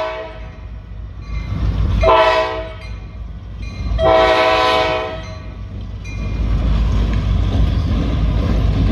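Freight locomotive air horn sounding its crossing signal: the end of a long blast, a short blast, then a final long blast of the same multi-note chord. A steady low rumble of the approaching locomotive and train builds after the horn stops.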